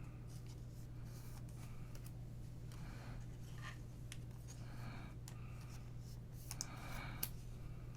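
Irregular soft rustling and clicking of trading cards and pack wrappers being handled and sorted by hand, over a steady low hum. A couple of sharper ticks come near the end.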